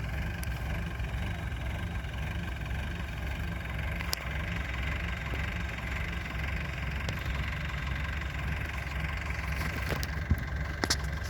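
Heavy construction machine's engine idling steadily, with a few short clicks, one about four seconds in and a couple near the end.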